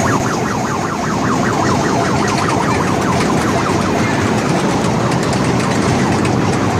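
Kiddie train ride running in a loud, echoing hall, with a quick warbling, siren-like sound repeating several times a second over a steady din.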